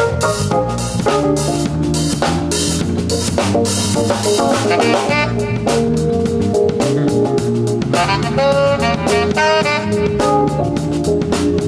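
Small band playing jazz live: drum kit keeping a steady beat under electronic keyboard chords. A melody line of quick notes comes forward about two-thirds of the way through.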